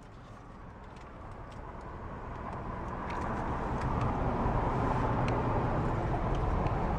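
Car road and wind noise heard inside the cabin with the sunroof open, growing steadily louder over about four seconds and then holding steady.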